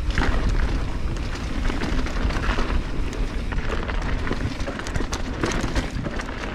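Mountain bike riding down a loose dirt trail: tyres crunching over dirt and stones with frequent short rattles and knocks from the bike, and wind rumbling on the microphone.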